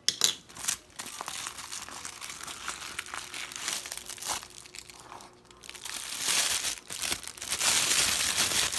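Packaging being handled and unwrapped: crinkling and rustling with a few sharp clicks about a second in, growing louder from about six seconds in.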